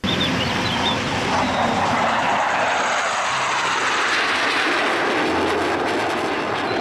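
Jet engine roar of two fighter jets flying past, a steady rushing noise that cuts off suddenly near the end.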